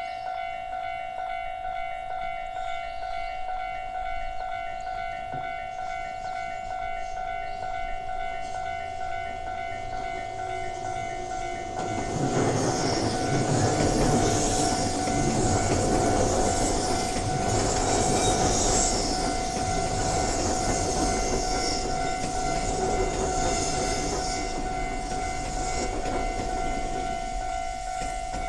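Electronic Japanese level-crossing warning bells ringing steadily throughout. About twelve seconds in, a train passes over the crossing: the rumble and high hiss of its wheels on the rails swell to the loudest part, then die away near the end.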